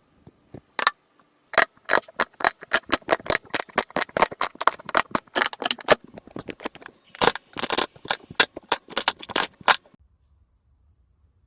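Slime being squeezed and poked, giving a fast, irregular run of sharp clicks and pops that stops suddenly near the end.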